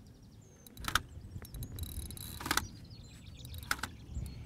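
A fixed-spool reel's clutch giving line in three short, sharp rasps, about a second and a half apart, to a carp pulling against a bent feeder rod. Birds chirp over a low wind rumble on the microphone.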